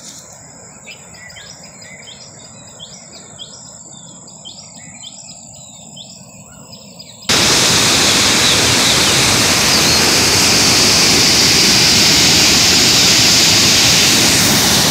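Birds chirping repeatedly, about two calls a second, over a steady high insect drone. About seven seconds in this cuts suddenly to the loud, steady rushing of swollen, muddy floodwater pouring in a torrent.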